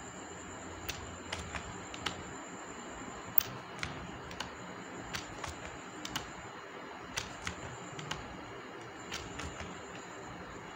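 Computer keyboard presses of the E key and mouse clicks: short, sharp, irregular clicks, roughly one or two a second, over a steady background hiss.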